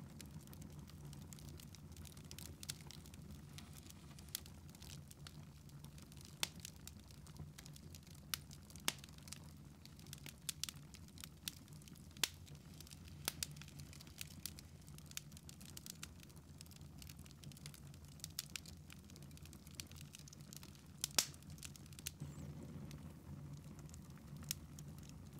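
Log fire crackling in a fireplace: irregular sharp pops, a few of them louder, over a low steady hum.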